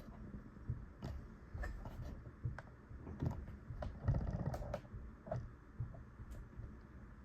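Casablanca Brescia ceiling fan running at low speed, a faint low hum with scattered light clicks and taps, one louder patch about four seconds in.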